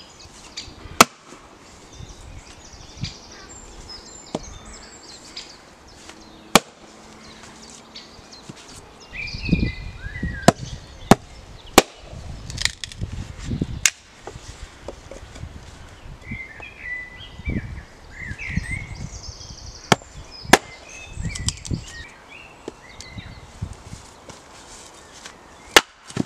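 An axe chopping and splitting wood: single sharp chops into the wood at uneven spacing, with a quick run of about six strokes about halfway through.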